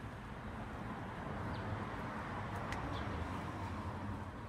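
Steady outdoor background hum of distant traffic, with a few faint, short high chirps scattered through it.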